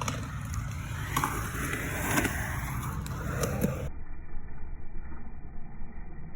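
Skateboard wheels rolling on pavement under a riding husky puppy: a steady rumble with a few clicks and knocks. About four seconds in the sound abruptly turns duller and muffled.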